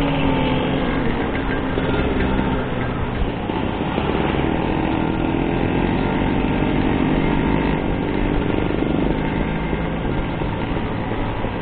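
Vintage Vespa scooter's two-stroke engine running under way along the road, its pitch climbing from about four to nine seconds in as it speeds up, over a steady rush of wind and road noise.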